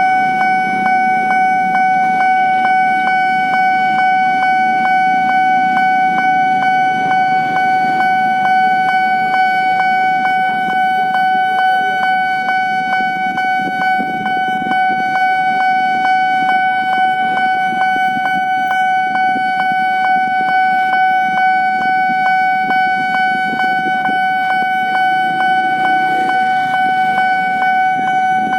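Level-crossing warning alarm sounding continuously: one steady high electronic tone with a fast, even pulse running through it. A low rumble of road traffic or train runs beneath it.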